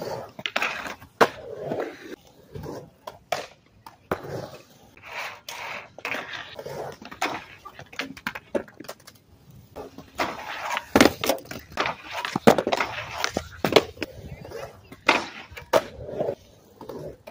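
Skateboard wheels rolling on concrete, broken by many sharp clacks and slaps as the board's tail, wheels and deck hit the ground during tricks, including a loose board coming down after a bail.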